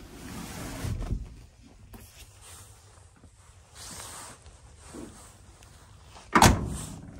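The steel cab door of a 1972 Ford F250 pickup slammed shut once near the end, a loud single bang with a short ring. Earlier there is rustling and a thump as the vinyl bench seat back is pushed back into place.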